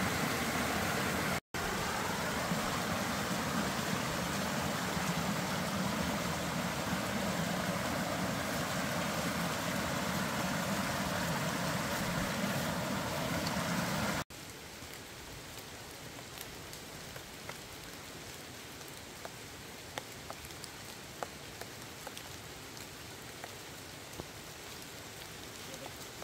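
Rain falling steadily. About halfway in the sound cuts to a quieter, lighter patter with scattered drops ticking.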